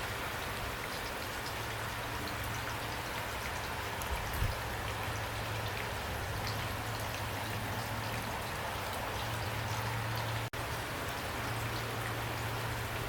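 Steady rain falling, with scattered single drops ticking on a surface. About ten seconds in, the sound breaks off for a split second.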